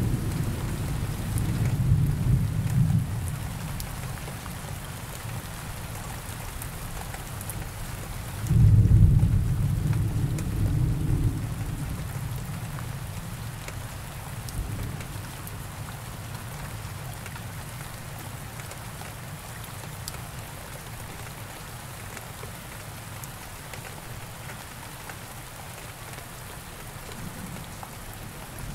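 Thunderstorm: steady rainfall hiss with deep rolls of thunder. One roll fades out in the first few seconds, and a louder one breaks about eight and a half seconds in and rumbles away by about twelve seconds.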